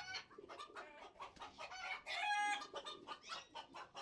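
A flock of chickens clucking and squawking, the birds stirred up by a hen being chased to be caught. A louder, drawn-out squawk comes about two seconds in.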